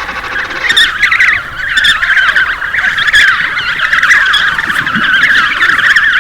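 A dense chorus of many animals calling over one another, a constant mass of high, wavering squeals and chirps, as from a crowded colony.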